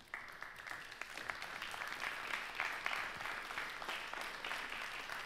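Audience applauding, many hands clapping; the applause builds over the first second or two and then holds steady.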